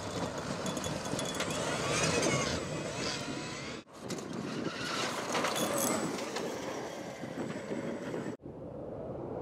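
Electric off-road race car with twin 9-inch DC motors driving on dirt: tyre and gravel noise mixed with a drive whine that glides up and down in pitch. The sound breaks off abruptly about four seconds in and again near the end, where passes are cut together.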